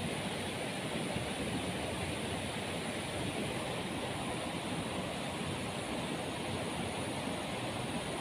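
Water of a small stream flowing, a steady even rush with no other events.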